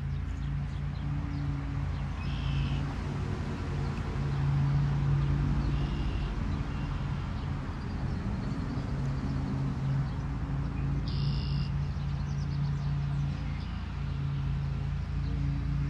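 Outdoor ambience with a steady low rumble and a low hum that comes and goes, and three short high bird chirps.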